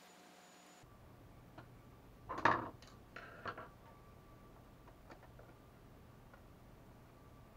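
Small clicks and taps of a screwdriver and screws being worked out of a 3DR Solo drone's plastic shell, with a louder knock and rustle about two and a half seconds in and a short clatter just after.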